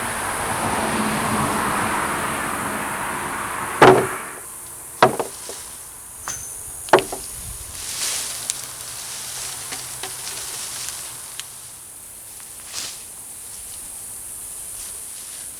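Rustling of hay-and-leaf mulch being dug through by hand for potatoes, then a run of sharp knocks, the loudest about four and seven seconds in, with fainter ones after.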